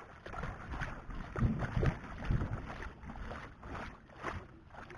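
Water splashing and sloshing in irregular bursts, heaviest about one and a half to two and a half seconds in.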